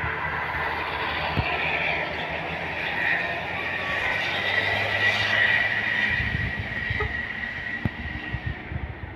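Bus driving past: engine and road noise grows to a peak a little past halfway, then fades, leaving an uneven low rumble.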